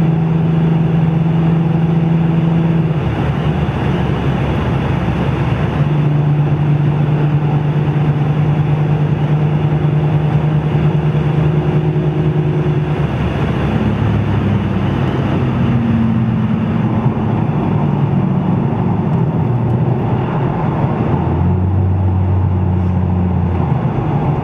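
2006 Ford Mustang's 4.0-litre V6 running through a Blue Oval Industries aftermarket exhaust while driving. The exhaust note holds steady for stretches and shifts in pitch several times as engine speed changes.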